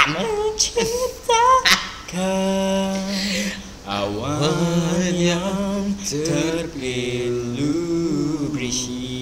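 Two teenage boys singing a cappella with no instruments, drawing out notes with wavering pitch. A long steady note is held a couple of seconds in.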